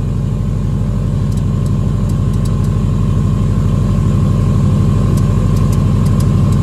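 Car engine idling steadily during warm-up on a freshly flashed tune, with a steady thin whine over it as the air suspension is raised, and a few light clicks.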